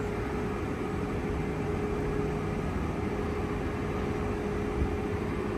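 Steady hum and whir of a 350 kW DC fast-charging station's power and cooling equipment while it charges a car, with one constant mid-pitched tone.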